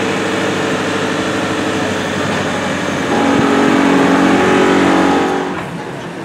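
A vehicle engine running steadily, changing to a higher, louder note about three seconds in, then fading away near the end.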